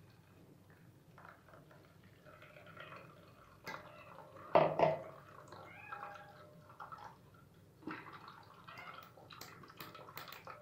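Blended watermelon pulp pouring and dripping through a stainless steel mesh strainer into a steel bowl, with a few sharp metal knocks, the loudest about halfway through.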